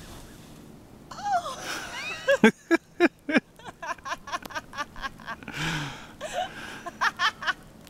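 A person laughing hard, starting about a second in, with a run of quick repeated ha-ha bursts through the second half.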